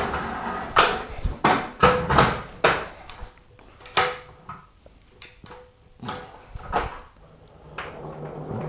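A 1956 Blackhawk aluminium-bodied floor jack being pulled and rolled across a concrete floor: a string of clanks and knocks, several with a short metallic ring, coming thick at first and then more spaced out.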